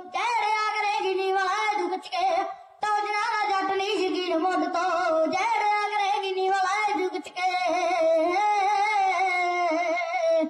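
A young boy singing a Punjabi song into a microphone, his voice amplified through a small portable speaker. The singing is held and melodic, with two short breaks, a little under three seconds in and again past seven seconds, and it stops abruptly at the end.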